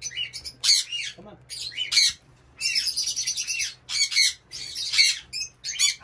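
Several caged parrots squawking and chirping, short harsh high calls coming several a second, with a brief lull about two seconds in. A faint steady low hum lies underneath.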